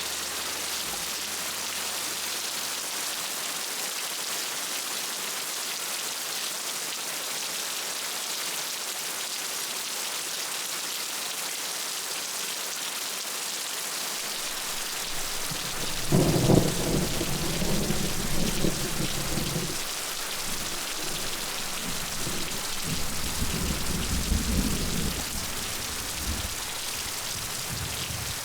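Heavy rain falling steadily. About halfway through a deep, uneven rumble swells up for a few seconds, and a second one follows a little later.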